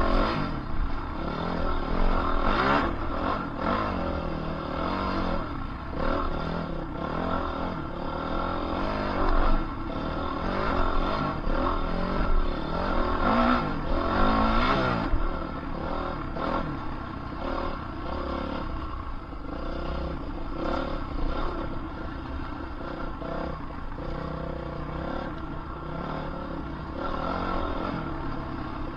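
Dirt bike engine running while being ridden, the revs rising and falling as the throttle is opened and closed, with a few louder swells of acceleration.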